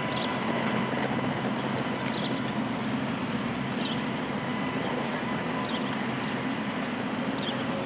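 Steady street and construction-site background noise with a low engine hum, and a few faint high chirps about every couple of seconds.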